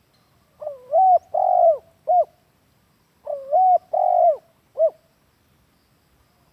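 Spotted dove cooing: two phrases of three notes each, about two and a half seconds apart, each a gliding first note, a longer middle note and a short final note.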